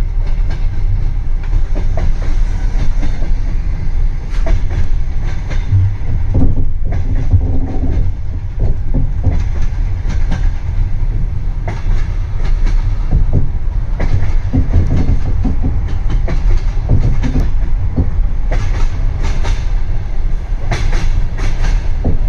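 A train running on the rails: a heavy, steady low rumble with frequent, irregular sharp knocks from the wheels and cars, the knocks growing denser near the end.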